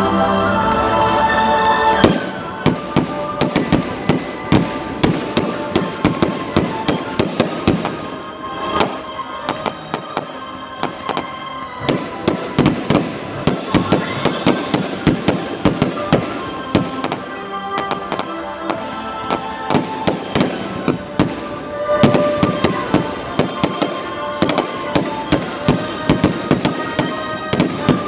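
Fireworks display: from about two seconds in, a rapid, continuous string of bangs and crackles, several a second, with music playing underneath.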